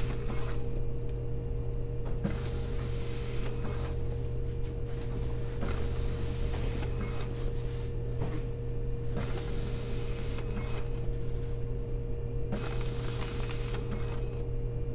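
Fujitsu fi-6130 sheet-fed document scanner scanning a stack of pages: its feed motor hums steadily, and a rustling swish comes every couple of seconds as each sheet is pulled through the rollers.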